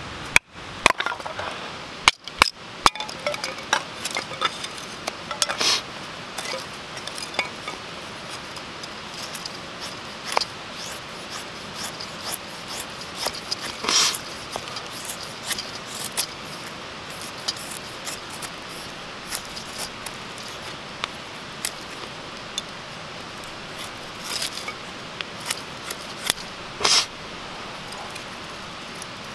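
A knife blade shaving curls off split wood sticks to make feather sticks: short, irregular scraping strokes, a second or more apart. In the first three seconds there are a few sharp knocks of wood on wood.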